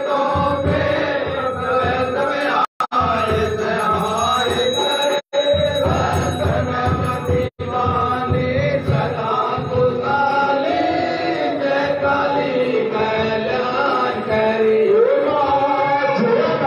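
Aarti hymn being sung as a chant, the melody running on without pause. The sound cuts out for an instant three times in the first half.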